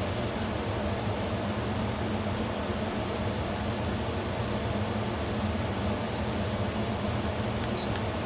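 Electrolux WP71-265WT air conditioner running with its fan on high: a steady drone made of several low tones that clash in a dissonance. The owner finds this fault noise disturbing and has it in a replacement unit too; Electrolux says it is normal.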